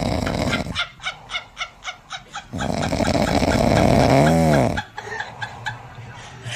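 Snoring: loud rasping breaths alternating with runs of quick short snorts, about four a second. About four seconds in comes a brief whine that rises and falls in pitch.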